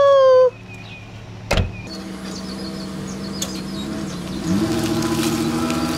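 Pickup truck door slamming shut once, about a second and a half in, then the Chevrolet Silverado's engine running steadily. Its pitch rises and it grows louder near the end as the truck pulls away.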